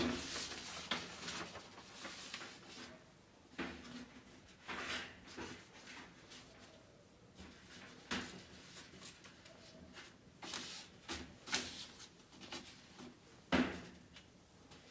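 Newspaper rustling and crinkling as sheets are spread and smoothed by hand in a brooder's droppings tray, with a few short knocks, the loudest near the end.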